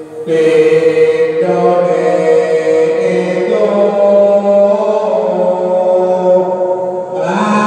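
A man's voice chanting puji-pujian, the devotional praise sung in Javanese village mosques after the adzan while waiting for the congregational isya prayer in Ramadan. Long held notes step from pitch to pitch, with a short break for breath a moment in and another near the end.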